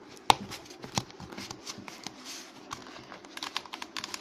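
A snakeskin-pattern wallet and its plastic wrapping handled by hand: irregular rustling and crinkling with sharp clicks, the loudest about a third of a second in and another at about one second.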